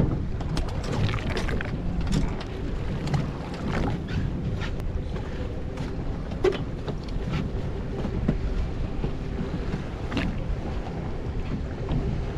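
Wind buffeting the microphone and water slapping against the hull of a small fishing boat, over a steady low hum from the boat's engine, with scattered light clicks and knocks.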